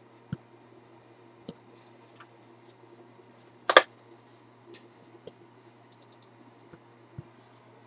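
Scattered small clicks and taps, with one sharp, loud double click a little before halfway and a quick run of four faint high ticks about three quarters of the way through, over a low steady hum.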